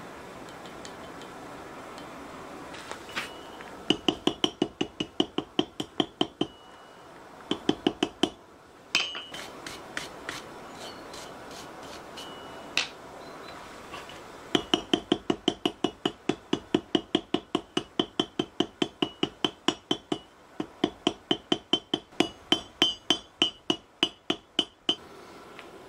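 Hand hammer striking a red-hot chain link on the anvil horn in quick runs of blows, about five a second, each blow ringing high off the anvil, with a few pauses between runs. The link is being forge-welded closed after fluxing.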